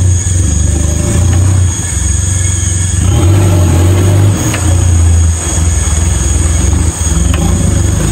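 A 4x4 pickup's engine revving hard as it churns through deep mud, the revs rising and falling several times.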